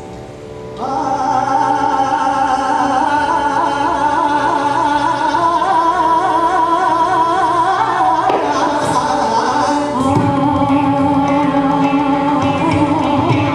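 Live Carnatic music for dance: a melody with singing and wavering, held notes that starts up about a second in after a quieter moment, with a fuller, lower layer entering around ten seconds.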